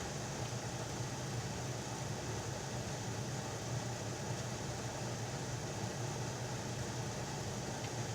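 Steady low mechanical hum of room tone, unchanging and with no other sounds standing out.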